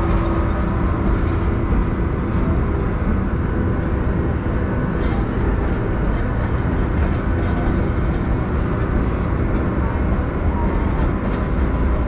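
Park train running along its track, heard from an open passenger car: a steady rumble of the moving train.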